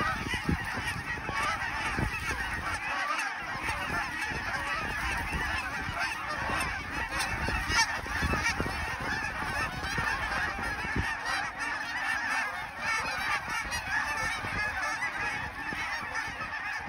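A huge mixed flock of Canada geese and snow geese calling, a dense unbroken din of overlapping honks and yelps. Wind gusts buffet the microphone underneath.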